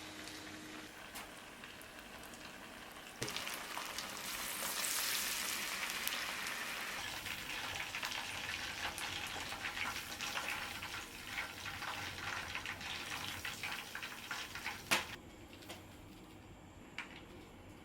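Tempura deep-frying: battered food goes into hot oil about three seconds in and sizzles loudly with dense crackling, easing off a little over the following seconds. A sharp click near the end, after which the sizzle falls away.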